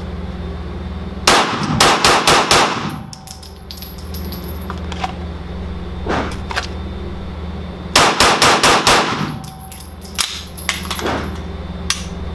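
Gen 4 Glock 17 9mm pistol fired in two quick strings of five shots, about six seconds apart, each shot ringing in the indoor range. A few fainter single shots fall between and after the strings, over a steady low hum.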